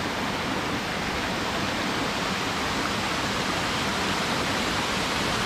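Steady rushing of a small waterfall and a rocky mountain creek, water cascading over boulders.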